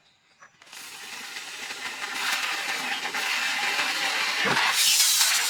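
A steady hiss that starts about a second in, grows louder and stops abruptly at the end.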